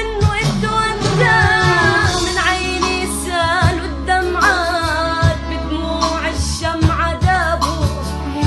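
A song: a singer's voice, melismatic and gliding, over accompanying instruments with a steady beat.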